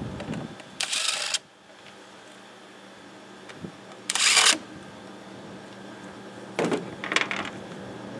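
Cordless DeWalt driver run in three short bursts of about half a second each on fasteners of a Predator 670 engine.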